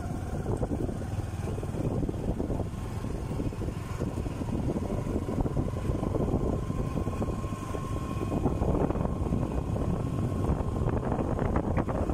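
Motorcycle riding along a road: the engine running steadily under a rough rush of wind and road noise on the microphone.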